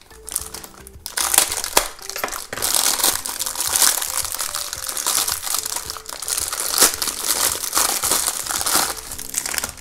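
Thin clear plastic packaging crinkling and crackling as hands tear and peel it open. The crackle grows loud about a second in and keeps going until near the end.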